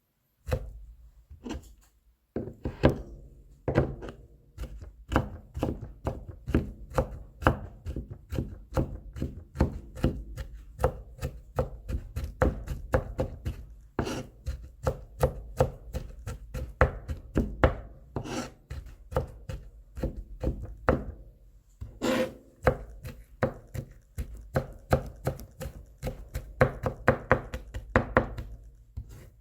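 Kitchen knife mincing garlic cloves on a cutting board: rapid, regular chopping strikes at about four a second. The chopping starts about half a second in, pauses briefly near the start, and stops for a moment twice more along the way.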